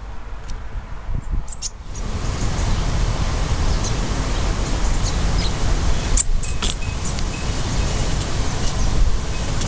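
Wind on the microphone: a steady rushing hiss with a deep rumble that swells about two seconds in. A few short, high bird chirps come through near the start and again just past the middle.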